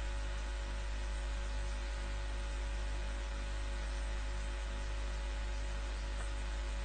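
Steady electrical hum and hiss with a few faint steady tones and nothing else: background noise on the audio line.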